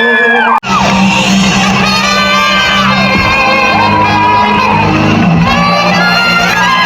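Loud live music with a crowd singing and shouting along in a large hall. The sound drops out for an instant about half a second in, then carries on.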